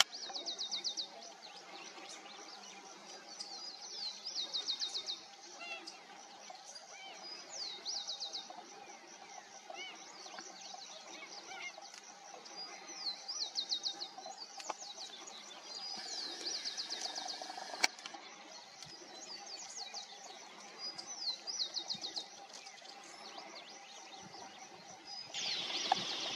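Wild birds calling at a lagoon shore: quick runs of high, sharp notes, each lasting about a second and repeated every few seconds, over a steady low background hum. About a second before the end a louder hissing background sets in.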